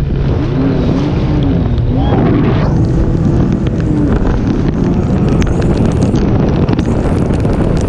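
Sea-Doo jet ski running at speed over choppy water, with wind buffeting the microphone and water spray, the hiss growing fuller from about three seconds in.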